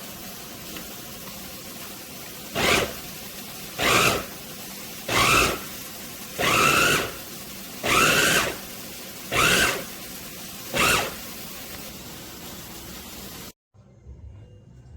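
GANIZA electric food chopper's motor running, surging louder seven times at about 1.3-second intervals as it is pulsed, then cutting off abruptly near the end.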